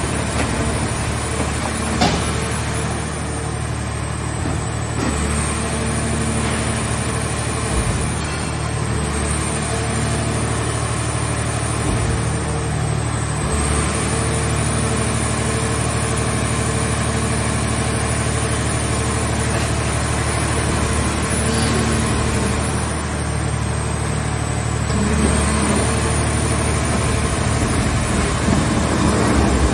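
Hydraulic power unit of a mobile scrap car baler running steadily while the hydraulic cylinders swing the press lid and side wall, with a few metal clanks, the sharpest about two seconds in.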